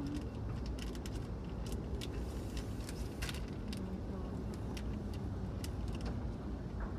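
Steady low rumble of a moving vehicle, heard from inside, with scattered light clicks and rattles.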